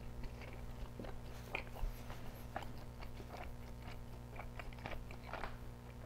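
Close-miked chewing of a bite of microwaved deep-dish cheese pizza: quiet wet mouth sounds with many small, irregular clicks.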